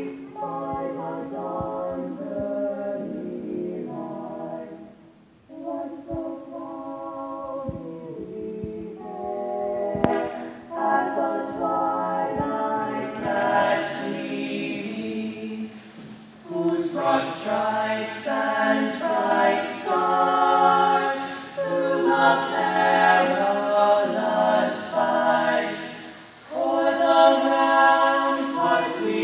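A small a cappella vocal group of female and male voices singing the national anthem in harmony. The notes are held and sung in long phrases, with brief pauses for breath between them.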